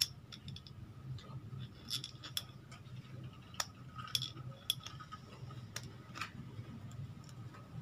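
Faint, scattered small metallic clicks and ticks as the through-bolts of a Suzuki Smash FI's electric starter motor are fitted back into its end cap by hand, over a low steady hum.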